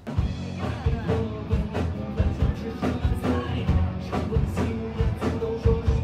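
Live band playing rock music, a drum kit keeping a steady beat of about two strokes a second under held notes and a bass line.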